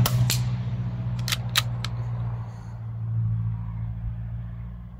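Sharp clicks from a moderated Weihrauch HW110 PCP air rifle being fired and its action worked: one about a third of a second in, then three more close together around a second and a half in. Under them, the low hum of a passing vehicle fades away.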